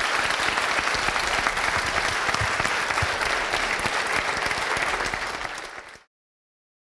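Lecture-hall audience applauding, a dense even clapping that fades over its last second and cuts off abruptly near the end.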